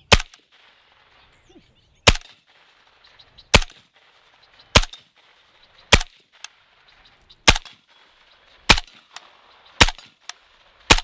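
Suppressed 7.62x39 AK-pattern pistol fired in slow semi-automatic fire: nine single shots about one and a half seconds apart.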